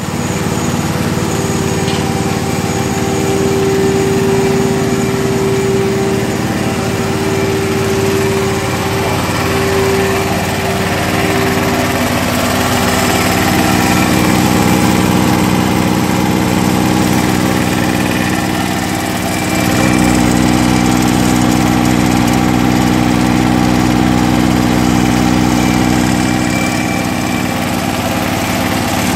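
Small petrol engine of a cow milking machine, about 7 HP, running steadily and driving the vacuum pump. Its note shifts about twelve seconds in, and a deeper rumble joins for several seconds later on.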